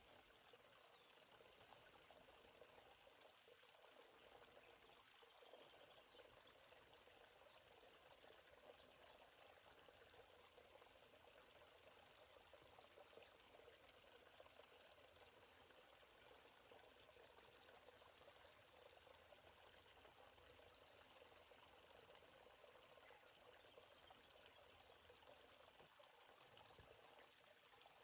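A steady, high-pitched insect chorus over the faint, even rush of a babbling stream.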